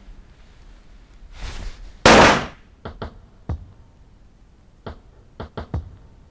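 A sudden loud bang about two seconds in, fading over about half a second, followed by a scattered series of short sharp knocks.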